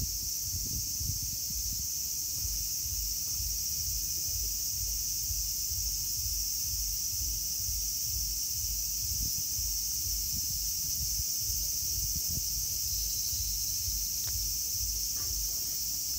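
A steady, high-pitched chorus of insects that never breaks, over low, irregular rumbling from the phone being handled.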